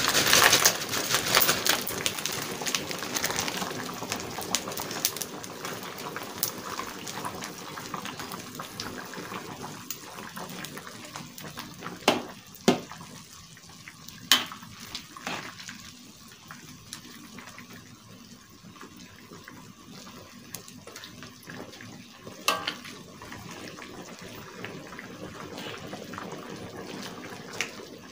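Coconut-milk curry simmering and being stirred in a metal wok: a steady watery bubbling and swishing, busier for the first couple of seconds as the skin crackers go in. A few sharp clicks of the spatula against the wok, a cluster about halfway through and one more later.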